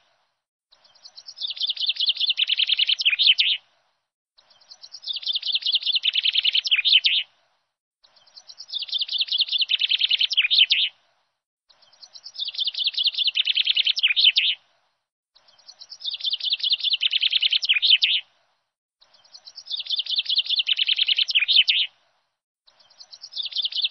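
A bird's rapid chirping trill, one phrase of about three seconds that falls a little in pitch, repeated identically every three and a half seconds or so with short silent gaps: a short birdsong recording looped as background.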